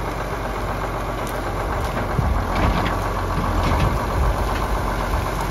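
John Deere 4640 tractor's six-cylinder turbo diesel running steadily as it pulls buried fence wire with its loader, with a few low knocks in the middle.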